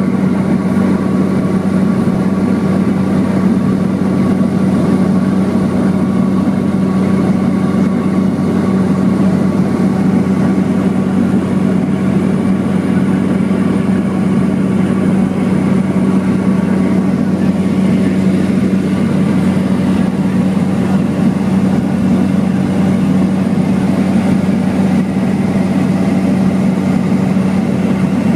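Cabin noise of a Cessna Caravan cruising in flight: its single turboprop engine and propeller give a loud, steady drone with a strong low hum, and airflow hiss lies over it. The drone does not change.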